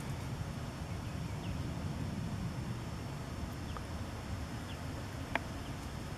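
Outdoor background ambience: a steady low rumble with a faint high whine, a few brief high chirps, and one sharp click about five seconds in.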